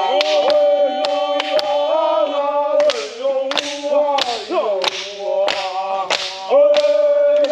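Group of voices singing a chant in unison, punctuated by sharp claps roughly twice a second.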